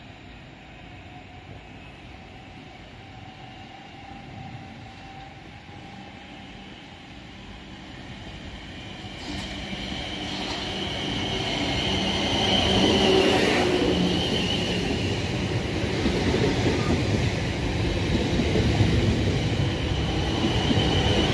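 A train approaching along the line, its rumble growing steadily louder from about eight seconds in and staying loud, with a high whine over it for a couple of seconds in the middle.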